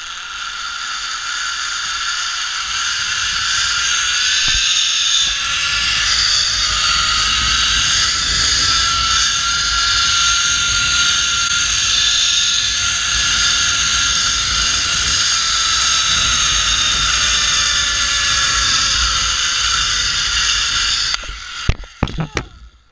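Zipline trolley pulleys running along the steel cable: a loud, steady whir whose pitch rises and then slowly falls as the rider gains and loses speed. It cuts off suddenly about 21 seconds in, followed by a few sharp knocks as the trolley reaches the landing platform.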